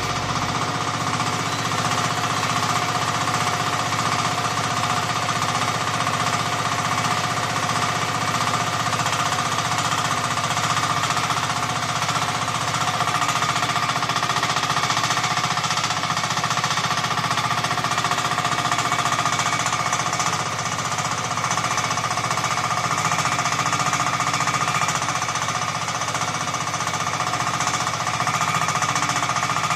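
Small diesel engine of a mini excavator running steadily, with a rapid, hammering beat.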